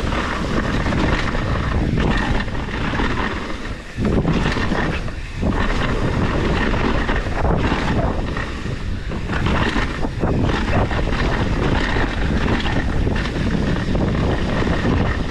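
Mountain bike ridden fast down a rough trail: steady wind noise on the camera's microphone over tyre noise and constant rattling and clacking from the bike, with the chain slapping against the frame.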